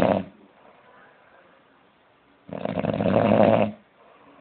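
A man snoring in his sleep: one snore dies away just after the start, and a second long snore of over a second comes about halfway through.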